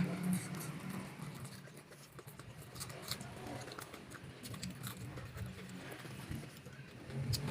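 Close-up chewing and crunching of raw vegetables and crisp peanut crackers, with many short crisp clicks scattered through.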